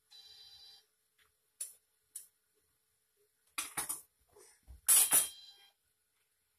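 A metal spoon knocking and scraping against a large steel cooking pot: two light clicks, then a clatter about three and a half seconds in and the loudest clatter about five seconds in. A short electronic ringing tone sounds at the very start.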